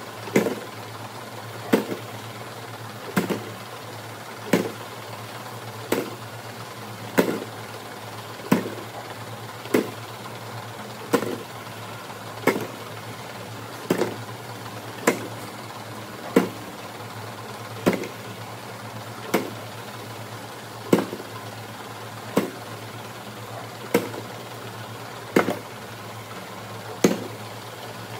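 VMek Abacus+ gummy counting and filling machine running with a steady low hum, a sharp clack repeating evenly about every second and a half with each fill cycle.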